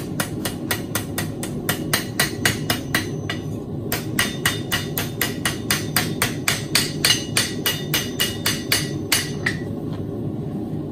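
Blacksmith's hammer striking hot steel on an anvil, flattening it into a feather shape: quick, even blows about four a second, with a short pause about three and a half seconds in, stopping about nine seconds in. A steady low hum runs underneath.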